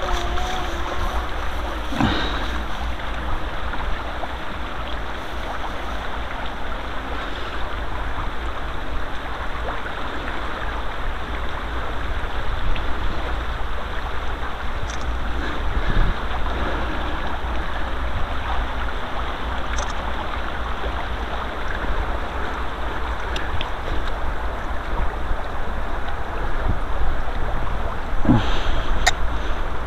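Steady rushing of flowing stream water, with a few faint knocks and rustles of handling.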